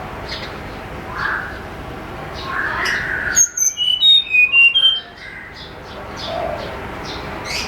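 Tledekan gunung singing: a quick phrase of about eight clear, high, flute-like whistled notes about three and a half seconds in. Around it is a hissy background with faint, scattered chirps.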